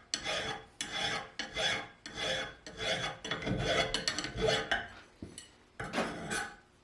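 Rhythmic rasping strokes, about two and a half a second, like a hand tool being worked back and forth on a workpiece. They stop about five seconds in, then two more strokes follow near the end.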